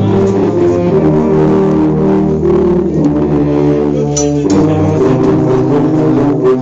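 A section of sousaphones playing loudly together: a low brass line of held notes that changes pitch every half second or so.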